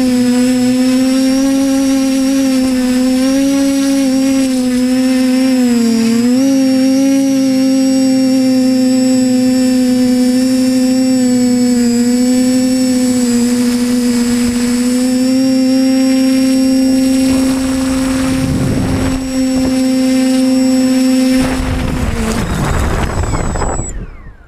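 TBS Discovery Pro quadcopter's motors and propellers buzzing with a steady pitched hum, heard close up from the camera on its frame. The pitch dips briefly about six seconds in. The hum cuts off a few seconds before the end as the quad sets down, followed by a short spell of noise before the sound falls away.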